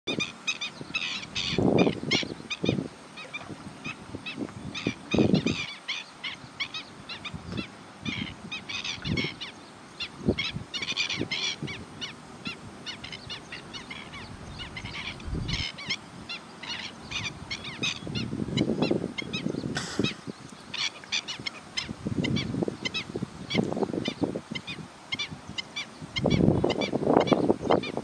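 Cormorant colony with black-winged stilts calling: a steady stream of short, high-pitched calls, broken every few seconds by louder low honking croaks, which come thickest near the end.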